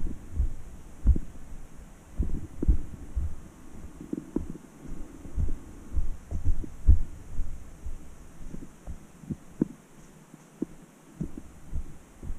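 Footsteps walking down a trail, picked up as dull low thuds at an uneven pace of about one to two a second, lighter toward the end.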